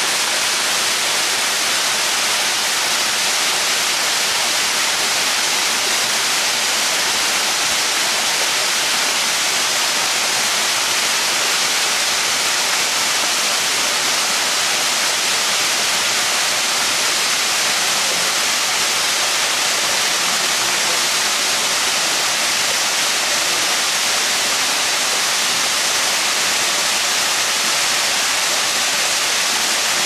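Waterfall cascading down stepped rock ledges into a pool: a steady rush of falling water.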